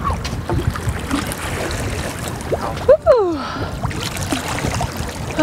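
Steady wind and water noise alongside a boat as a white sturgeon is handled in the water at its side. About three seconds in there is a short cry that falls in pitch.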